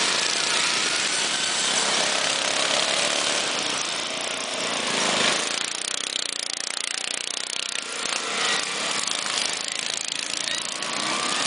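Several racing ride-on lawn mower engines running together, their pitch rising and falling as they rev along the track.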